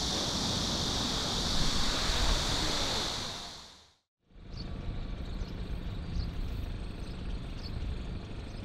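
Steady outdoor ambience with a high hiss, fading out to silence about four seconds in. A quieter outdoor background then returns, with a few faint, short high chirps.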